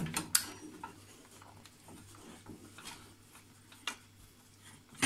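Metal clicking as the valve on an aluminium stovetop pressure cooker's lid is handled with a cloth: one sharp click, then a few faint ticks.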